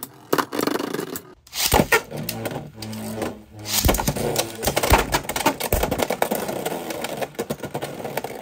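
Beyblade X tops spinning and clashing in a plastic stadium: rapid clicking and rattling with sharp hits, which break off briefly about a second and a half in and then start again hard.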